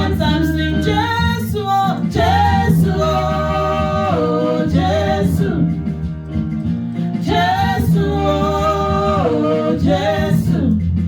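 Gospel worship song: a voice singing long, held notes over a steady instrumental backing.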